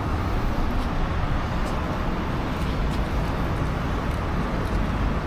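Steady road traffic noise, a continuous rush of passing cars.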